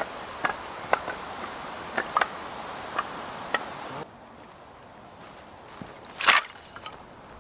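Firewood being handled, with sharp wooden knocks: a quick run of them in the first half, then one louder knock about six seconds in.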